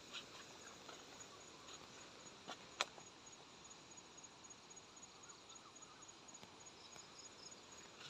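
Near silence: faint outdoor ambience with a thin, evenly pulsed high insect chirping and one sharp click a little under three seconds in.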